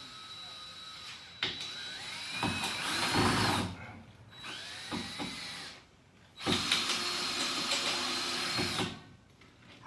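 Power drill with a screwdriver bit driving a Tapcon masonry screw through a board into the wall, in three runs with short pauses: the motor whines, speeds up briefly in the first run, and runs longest and steady in the last until the screw is seated.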